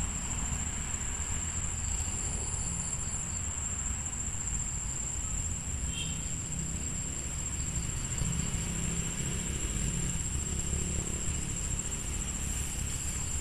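Insects droning at one steady high pitch, with a low steady rumble beneath.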